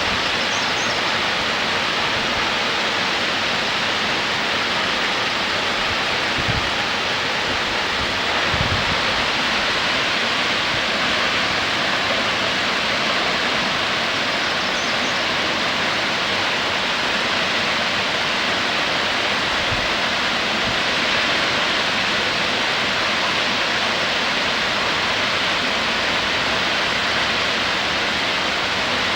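Steady rush of a waterfall's falling water, even and unbroken, with a few brief low thumps.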